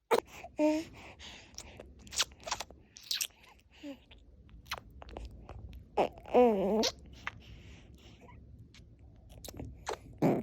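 Small clicks and smacking mouth sounds from a two-month-old baby nursing, broken by a short whimper just after the start and a longer wavering cry about six seconds in.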